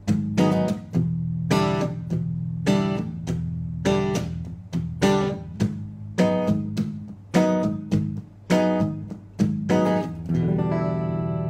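Electric guitar chords strummed in a choppy rhythm, about two strokes a second, with the last chord left ringing from about ten seconds in.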